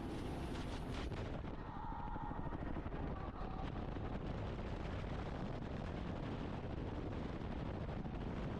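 Helicopter in flight with its doors off: steady rotor and engine noise mixed with wind buffeting the microphone, a continuous dense rush with fast chopping pulses.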